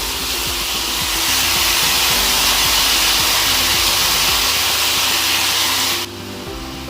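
Loud sizzling hiss of chopped taro flower frying in a hot pan of pork and spices, growing louder about a second in and cutting off about six seconds in, over background music.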